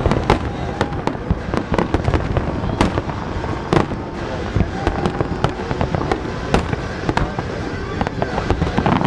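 Aerial fireworks display: shells bursting in rapid, irregular bangs over a continuous rumble of distant detonations, with a few louder bangs standing out.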